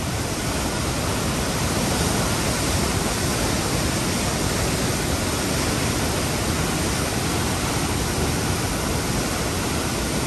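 Chenab River floodwater rushing and churning through the Head Marala barrage: a steady, unbroken rush of turbulent white water.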